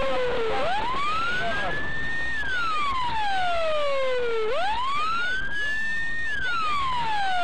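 Emergency vehicle siren sounding a slow wail. Each cycle rises for about two seconds and falls for about two, with fainter siren tones overlapping above it.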